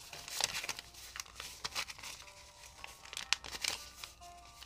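Paper dollar bills rustling and snapping as a stack of banknotes is flipped through and counted by hand: an irregular run of crisp crinkles.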